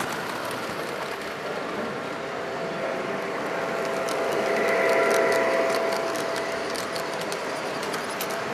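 O gauge three-rail model train passing close by: a steady electric motor hum that swells to its loudest about halfway through, with quick clicks of the wheels over the track joints in the second half.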